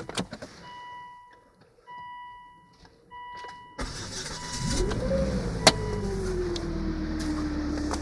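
Volvo V50 being started: three electronic chimes, then the starter cranks and the engine catches, flares up and settles to idle. A whine rises with the start-up flare and falls as the revs drop, holding steady at idle. This is the engine noise that has appeared since the timing belt was replaced.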